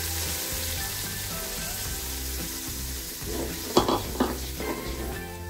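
Wet masala paste of yogurt and ground onion sizzling in hot oil in an aluminium pot, stirred with a slotted metal spoon; about four seconds in the spoon knocks and scrapes against the pot a couple of times.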